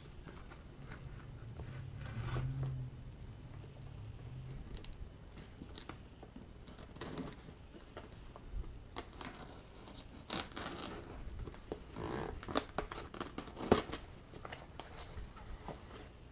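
A cardboard shipping box being opened by hand: packing tape slit and torn, flaps scraped and pulled back. It comes as a string of scratches and sharp clicks, busiest and loudest in the second half. A low hum sounds in the first few seconds.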